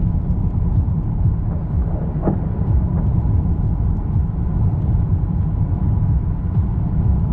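Steady, loud low rumbling noise with no distinct events.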